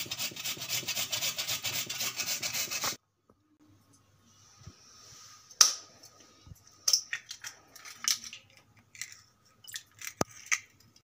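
Potato grated on a flat metal grater: rapid scraping strokes that stop abruptly about three seconds in. Then eggs are cracked into a ceramic bowl, with one sharp knock about five and a half seconds in and scattered lighter clicks after.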